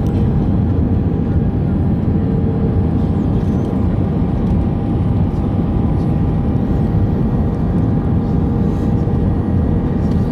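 Airbus A319 airliner heard from inside the passenger cabin: a loud, steady rumble of engines and airflow, with a couple of faint steady tones running through it.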